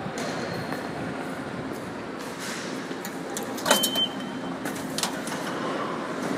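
TTC subway turnstile being pushed through: one sharp metal clack about three and a half seconds in, with a brief high ring, followed by a few lighter clicks as the arm turns. Steady station ambience underneath.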